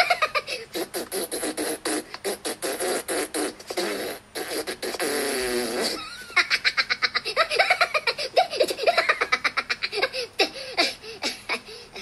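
Minion cartoon voices, high-pitched gibberish chatter and laughter in quick choppy bursts, played through a smartphone's speaker. A long wobbling vocal sound comes a little after four seconds in and lasts about a second and a half.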